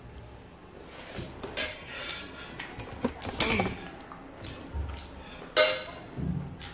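A few sharp clinks and knocks, like dishes or utensils being handled, the loudest about five and a half seconds in.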